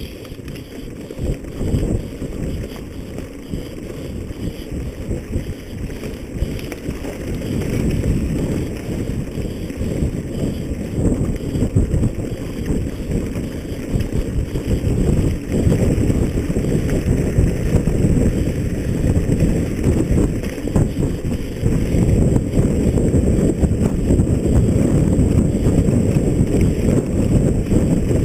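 Wind buffeting a moving camera's microphone: a dense, low rumble that gets louder in the second half.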